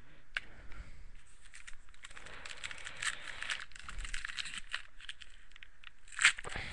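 Crinkling and rustling of a plastic trading-card pack wrapper as it is handled and torn open, with a louder crackle about six seconds in.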